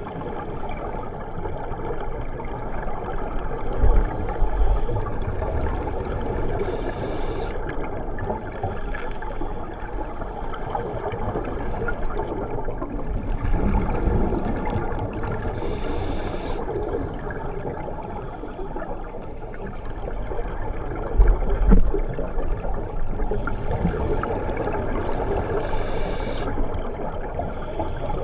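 Scuba diving underwater, heard through a camera's waterproof housing: a steady muffled rush with bursts of exhaled regulator bubbles gurgling up every few seconds. Two low thumps stand out, about four seconds in and near the three-quarter mark.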